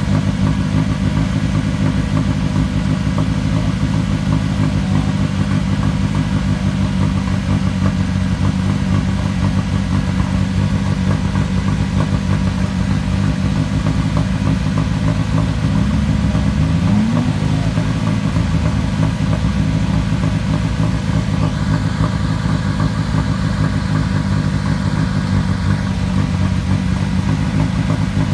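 Rally car engine idling steadily, with one short blip of the throttle, rising and falling in pitch, about two-thirds of the way through.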